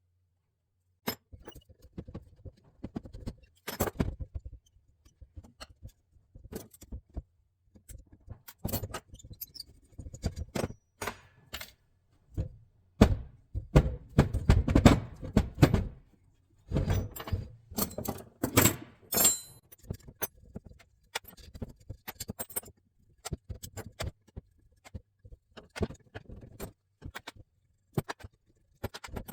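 Metal carburetor parts and hand tools clinking, clicking and knocking on a workbench as Solex P40-II carburetors are taken apart, in irregular handling noises that are busiest about halfway through.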